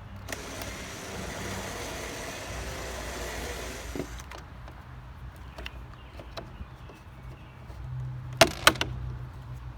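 Power drill running a step bit through a plastic bumper cover for about four seconds, then stopping. Near the end come two sharp clicks in quick succession.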